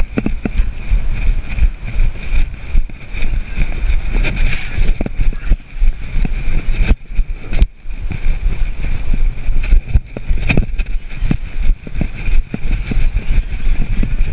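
Wind buffeting and rubbing on a body-worn GoPro's microphone: a loud low rumble that surges and falls unevenly, with scattered knocks, and briefly drops away about seven seconds in.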